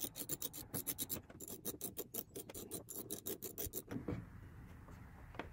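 A fast run of sharp clicks, about eight a second, from a hand tool undoing a fastener on the plastic cowl shroud under the hood. The clicking stops about four seconds in, leaving faint handling of the plastic panel.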